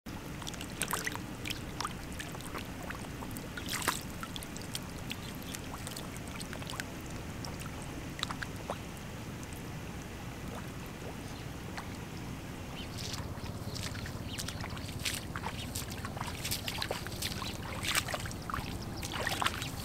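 Fish flapping and splashing in a shallow muddy puddle, with scattered small splashes and wet slaps. In the last few seconds, feet slosh through the shallow water and mud.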